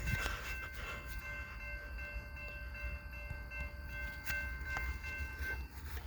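Rails singing ahead of an approaching train: a faint, steady high-pitched ringing of several tones that cuts off near the end, over a low rumble.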